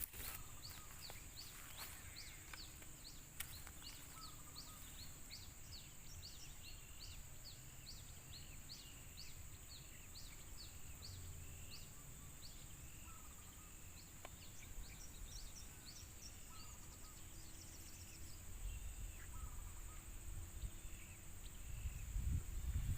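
Outdoor pondside ambience: a steady high insect drone with a long run of quick, short, high chirps, about two or three a second, from a calling bird or other small animal. A low rumble of movement or handling builds near the end.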